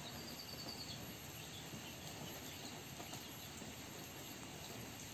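Steady, quiet outdoor background hiss with no clear event, and a faint high thin call in the first second.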